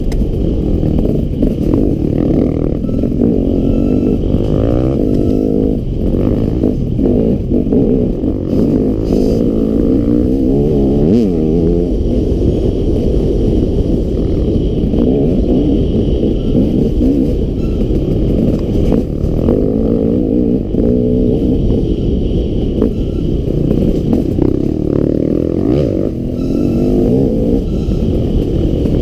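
Enduro dirt bike engine heard from on board while riding a trail, its pitch rising and falling again and again as the throttle opens and closes, over a dense low rumble.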